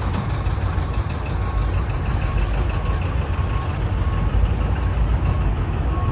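An engine idling steadily, giving a heavy low rumble.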